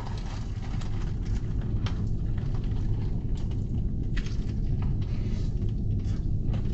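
Steady low rumble of a car, heard from inside its cabin, with a few faint clicks.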